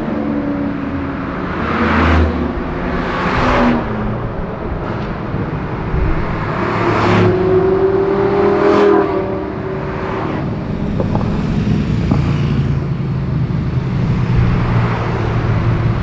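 High-performance sports car engines accelerating past one after another on a city street, several loud pass-bys with rising and falling engine notes, then a steadier lower engine rumble in the second half.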